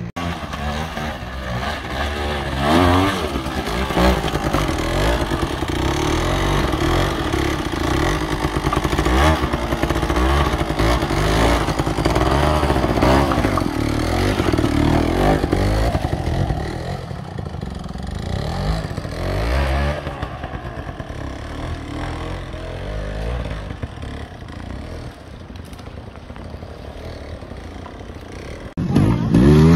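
A trials motorcycle engine revving up and down in short bursts as the bike picks its way over rocks and roots, with clatter from the bike. The revs ease off somewhat in the last third.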